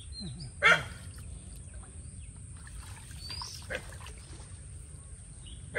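A dog barks once, about a second in, and again at the very end, with a bird chirping faintly in between.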